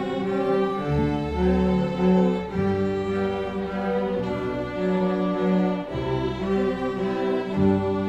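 Youth string orchestra of violins, cellos and double basses playing long held notes that change every second or so over a low bass line.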